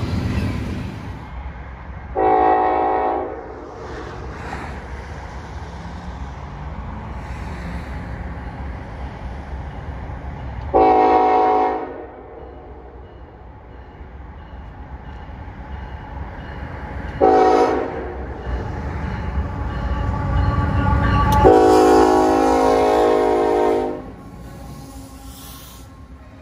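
Diesel locomotive's multi-note air horn sounding the grade-crossing signal: two long blasts, a short one, then a long one. Under it is the rumble of the approaching diesel locomotives, which is loudest with the last blast as they pass.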